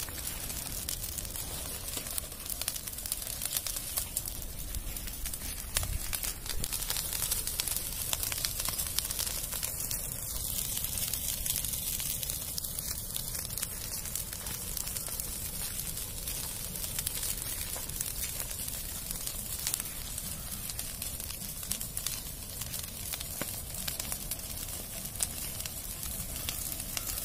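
Dry brush and thorny scrub burning in the open, a dense, steady stream of small crackles and pops over a hiss.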